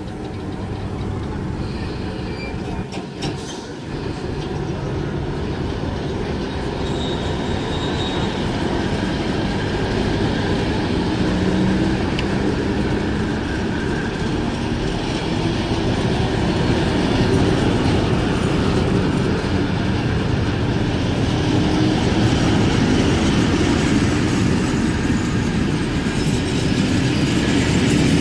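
A train running on the line, a steady rumble that grows gradually louder, with faint wheel squeal at times.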